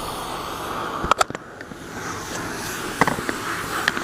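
Pressure washer spray hissing steadily, with a few sharp clicks and knocks about a second in, around three seconds in and near the end.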